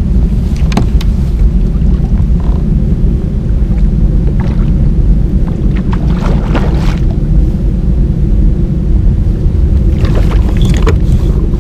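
Wind buffeting the camera microphone as a loud, steady low rumble, with a splash about ten seconds in from a hooked trout thrashing at the surface beside the kayak.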